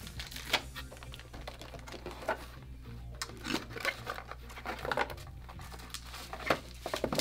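Packaging being handled: a plastic bag crinkling and a small cardboard box being picked up and opened, as a string of short rustles and taps, over quiet background music.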